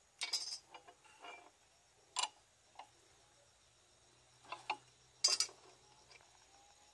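Scattered sharp metal clicks and clinks as a wrench is fitted to and turned on the bolt of a chainsaw mill guide clamped to the chainsaw's bar, with the saw not running.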